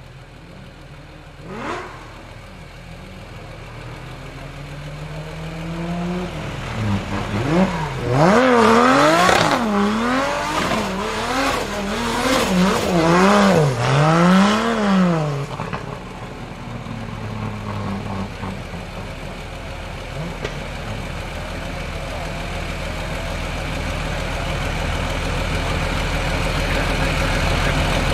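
Supercar engine revved repeatedly, its pitch climbing and dropping about seven times in quick succession, loudest in the middle; before and after, it runs more quietly at a steady pitch.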